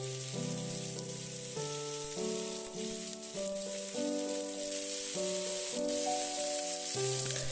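Fish pieces shallow-frying in hot oil in a pan, a steady sizzle. Background music plays over it, its chords changing about once a second.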